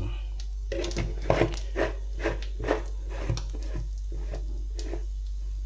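A snack frying in a stainless steel frying pan and being moved about with a utensil: a string of short, irregular clicks and scrapes over a steady low hum, dropping away just before the end.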